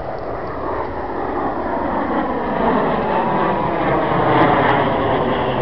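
A formation of BAE Hawk T1 jets flying overhead, the noise of their Adour turbofan engines steadily growing louder.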